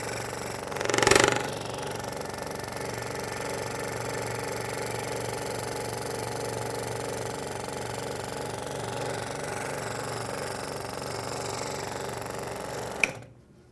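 Scroll saw running, its blade stroking up and down as it cuts a paper-pattern puzzle piece out of a wooden board, with a brief louder burst about a second in. Near the end the saw cuts off with a click.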